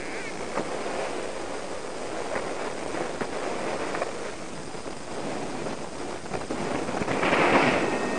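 Airflow rushing over the camera's microphone during paraglider flight, crackling and buffeting throughout, with a louder gust about seven seconds in.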